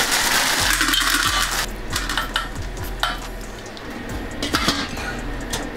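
Green beans rustling as they are tipped from a plastic bag into a stainless steel steamer pan, followed by several metallic clinks and knocks as the steamer pans and glass lid are handled and the lid is set on top.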